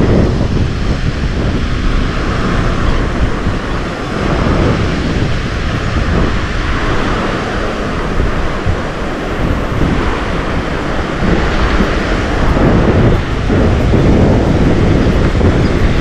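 Wind buffeting the microphone with a loud, continuous rumble, over the hiss of small waves breaking along the beach.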